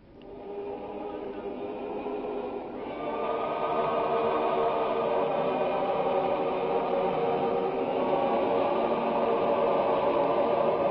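Choral music of long, held notes that fades in and grows louder about three seconds in.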